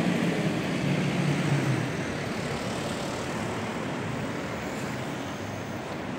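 Street traffic: a motor vehicle passes with a low rumble in the first two seconds, then a steady background hum of traffic.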